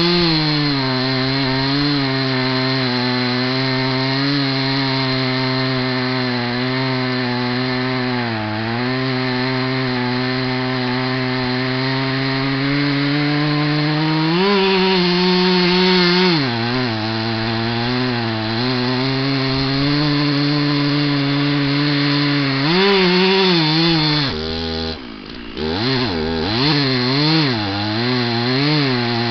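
Stihl two-stroke chainsaw running at full throttle under load as it cuts through a large log, its pitch sagging now and then as the chain bites. About halfway through the revs jump up and settle again. Late on the saw drops to idle for a moment, then is revved back up in several quick blips.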